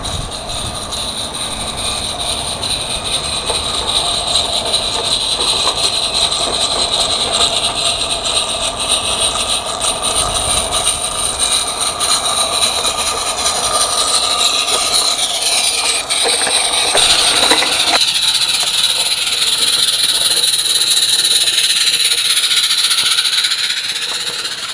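A 16mm-scale garden railway train running along 32mm-gauge track: a steady rolling noise from the wheels on the rails with high-pitched singing tones over it, growing a little louder as it passes close.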